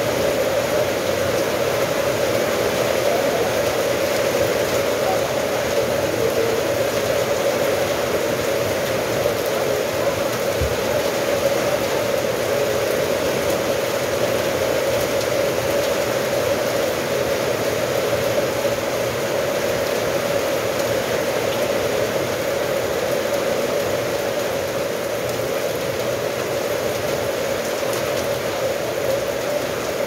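Steady rain falling, an even hiss that holds the same level throughout.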